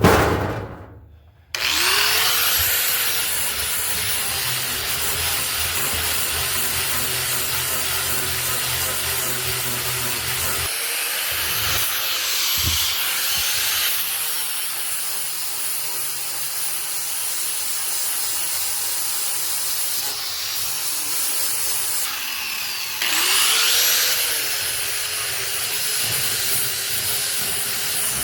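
Angle grinder with a flap disk sanding an oak board: a steady, loud motor whine with grinding rasp that starts about a second and a half in, its pitch swooping down and back up a few times.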